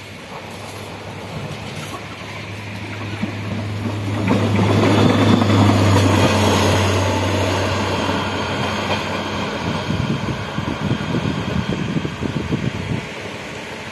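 Diesel engine of a rail track motor car (TMC) approaching and passing close by with a steady low hum, loudest about five to seven seconds in. As the engine note fades, its wheels clatter on the rails until the sound stops suddenly near the end.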